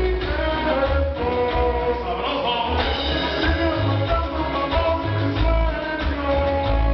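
Latin dance music played loud over a sonidero sound system, with a heavy pulsing bass beat and melody lines over it.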